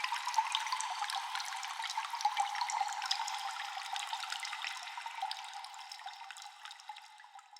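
Cave water dripping and trickling with echo: a steady wash of running water dotted with many small drip ticks. It fades away over the last couple of seconds.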